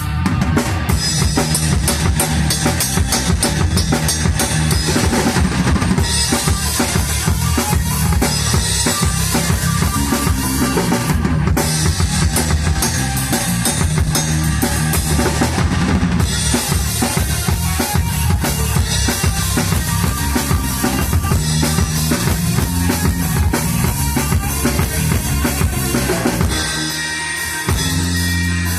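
Live rock band playing instrumentally, with a drum kit's kick, snare and rimshots loudest over a stepping electric bass line. Near the end the playing drops out for about a second, then comes back in.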